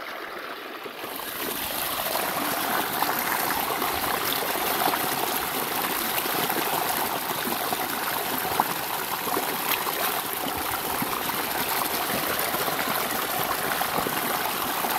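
Shallow stream water running and trickling over stones, a steady rush that swells over the first couple of seconds and then holds.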